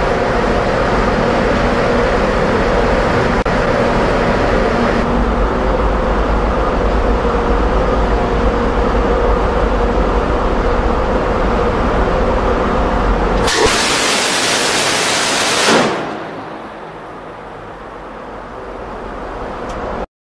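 Phalanx CIWS's 20 mm M61 Vulcan Gatling gun firing one continuous burst of about two seconds, a dense buzzing blast that starts and stops abruptly about two-thirds of the way in. Before it, a steady mechanical rumble of the ship; after it, wind on the microphone.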